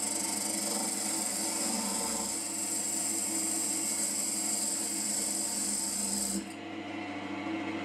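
JIB W0903X wood lathe running with a steady hum while a jig-held cutter shaves the outside of a spinning wooden bowl blank, giving a continuous rasping hiss of wood being cut. About six and a half seconds in the cut stops abruptly, leaving only the lathe motor running.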